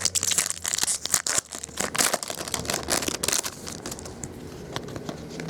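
Bowman Chrome trading cards handled and flipped through by hand, a dense crinkling and rustling that is busiest for the first three seconds or so, then thins out.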